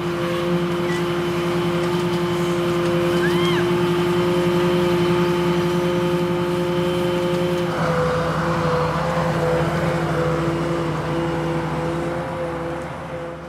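Engine of heavy lifting machinery running steadily at one speed. A hiss joins in about eight seconds in.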